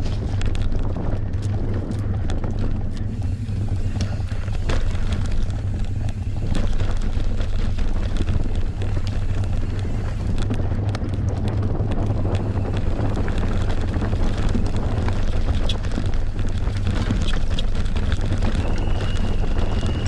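Wind buffeting the microphone over the rattle and clatter of a full-suspension enduro mountain bike running down a trail, with frequent sharp knocks and clicks from the tyres and chain. A brief high squeal sounds near the end.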